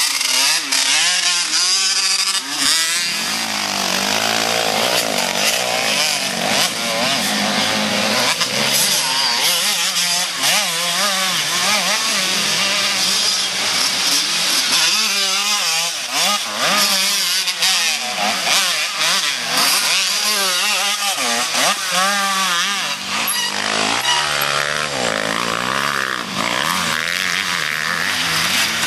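Off-road race engines revving without a break, their pitch rising and falling again and again as the throttle opens and closes.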